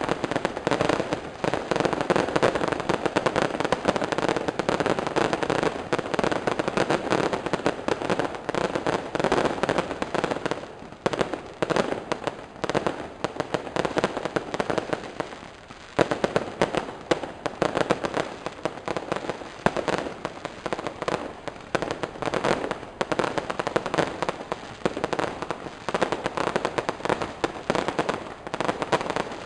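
Fireworks and firecrackers going off in a dense, continuous crackle of rapid sharp pops, thinning briefly twice midway before picking up again.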